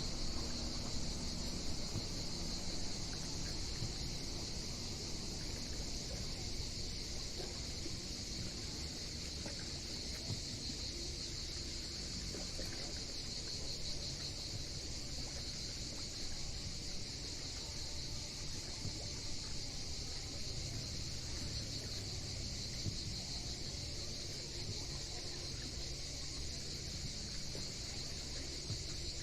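Steady chorus of cicadas, a continuous high buzz, over a low rumble.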